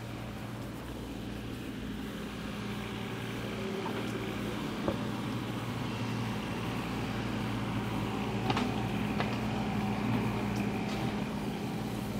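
A motor vehicle's engine running close by in city traffic, a steady low hum that slowly grows louder, with a few light clicks over it.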